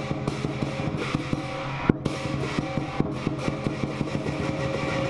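Lion dance percussion: a drum beaten in a fast, steady rhythm over ringing cymbals and gong, with one louder strike about two seconds in.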